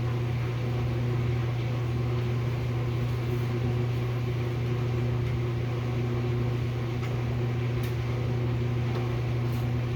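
Steady low electrical hum from a running kitchen appliance, with a couple of faint clicks near the end.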